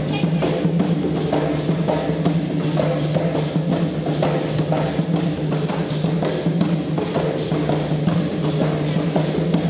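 Percussion music: hand drums beating a steady, driving rhythm with sharp clacking hits over a sustained low drone.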